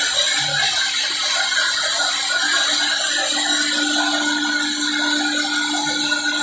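Woodworking machine running steadily, with a few level hums and whines under a fast, even mechanical clicking.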